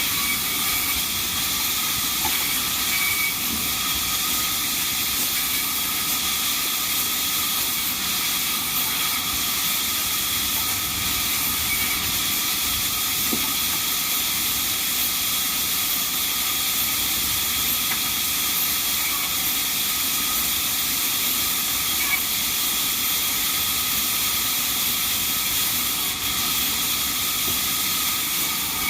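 Sawmill band saw running, a steady hissing noise with a faint constant whine and no change in level.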